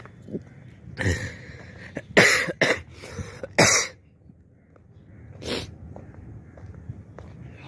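A person coughing: a run of short, harsh coughs between about one and four seconds in, then one more cough a little later.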